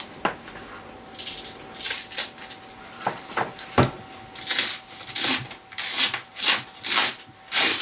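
Handling of an unplugged random orbit sander: a few knocks, then from about halfway through a quick series of short scratchy rubbing or rustling strokes, about two a second.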